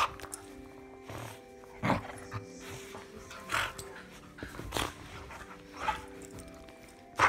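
A dog playing, making five short noisy sounds about a second or so apart, the last one loudest, over soft background music.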